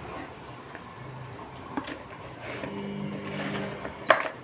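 A hand squishing mutton chops through a thick yogurt marinade in a plastic bowl, with a short click about two seconds in and a louder sharp knock near the end. A steady motor-like hum swells in the background through the second half.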